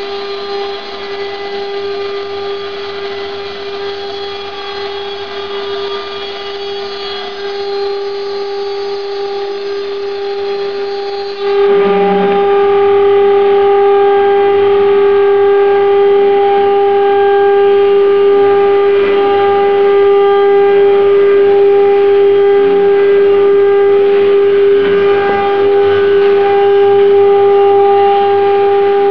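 CNC router spindle running with a steady whine as its bit mills through aluminium composite (Alucobond) panel. The sound steps up louder about eleven seconds in and stays there.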